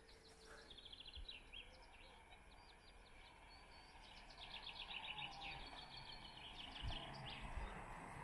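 Faint birdsong: small birds chirping in quick repeated trills over a low background rumble that grows slightly louder in the second half.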